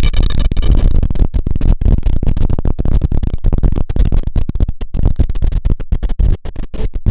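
Lisbon's number 28 electric tram running, with a heavy low rumble and rapid, irregular rattling and clattering of the car and its wheels on the rails. A brief high screech comes in the first second.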